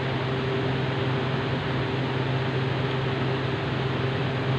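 Steady mechanical hum: a low drone with a fainter higher tone over an even hiss, unchanging throughout.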